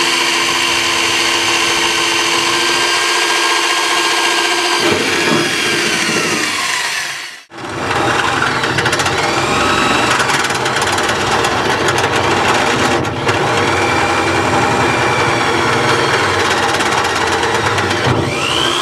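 Electric drill with a right-angle head running at speed, drilling into the combine's sheet-metal elevator housing. It runs in two long stretches with a short stop about seven seconds in, the motor whine falling as it winds down at the end of each.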